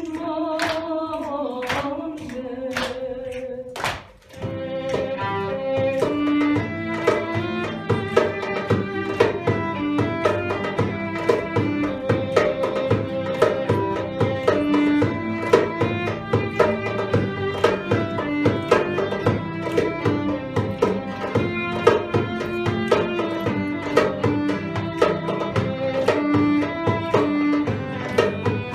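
Choir of young women singing a Bosnian folk song for the first few seconds; after a short break about four seconds in, a folk ensemble of violin, acoustic guitars and a hand frame drum plays a lively instrumental passage over a steady drum beat.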